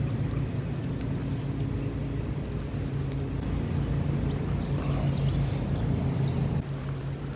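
A steady low motor hum, like an engine running, with birds chirping briefly over it.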